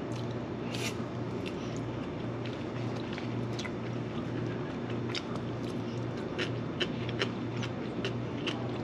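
Eating sounds: chewing, with scattered short clicks of wooden chopsticks picking at a plastic lunch-box tray, over a steady low hum.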